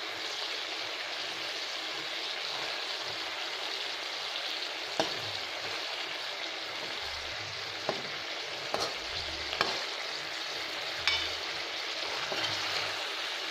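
Whole small brinjals in masala and oil sizzling steadily in a kadai, with a handful of sharp clicks and scrapes of a metal spoon against the pan as they are turned.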